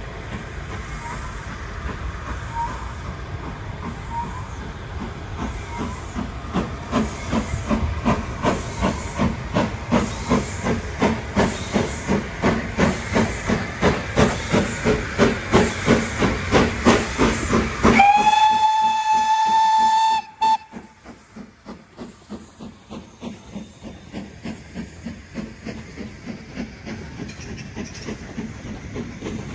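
Steam locomotive working past, its exhaust beats growing steadily louder, then one long blast on its whistle, about two and a half seconds, that cuts off suddenly. After it the carriage wheels click evenly over the rail joints as the coaches roll by.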